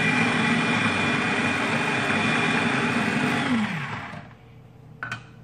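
Small electric food chopper running at full speed, its blades whirring through a chopped green vegetable mixture, then spinning down with a falling pitch about three and a half seconds in when the cup is released. A couple of light clicks near the end.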